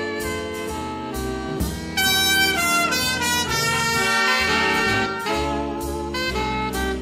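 Horn-led jazz played back from a cassette tape recorded with Dolby C on a Kenwood KX-5530 auto-reverse cassette deck. A louder passage runs from about two seconds in to about five seconds in.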